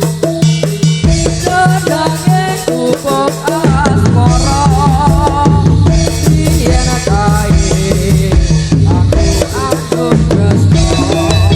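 Topeng Ireng dance music: drums and percussion keeping a steady beat, with a wavering melody over them.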